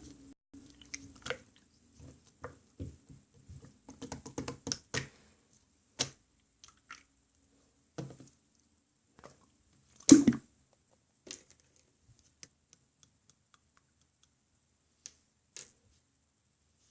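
Clear slime being squished and pressed by hand, giving irregular sticky clicks and small wet pops, with one louder pop about ten seconds in.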